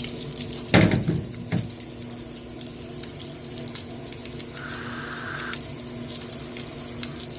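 Roper direct-drive top-load washing machine in its spin-drain: the motor and drain pump hum steadily while water gushes out of the drain hose. A couple of knocks come about a second in.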